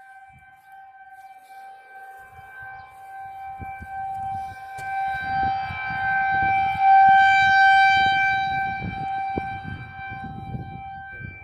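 Tornado warning siren being tested, sounding one steady tone that swells louder to a peak about seven seconds in and then fades back. A low irregular rumble runs underneath.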